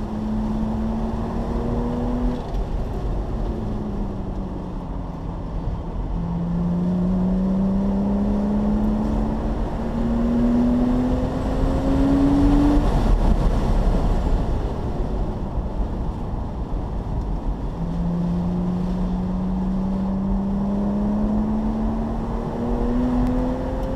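Porsche Boxster Spyder's flat-six engine at full throttle on a race track, heard from the car, its note climbing in long sweeps and dropping back between them as it is shifted or lifted for corners, loudest about halfway through. Wind and road noise lie under it.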